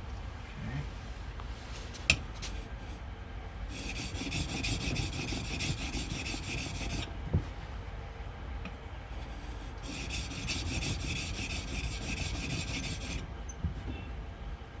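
Steel lathe-tool edge being stroked back and forth on the 1000-grit side of a wet whetstone, a gritty rubbing scrape. It grows into two louder rasping spells midway, with a couple of sharp clicks as the tool is repositioned.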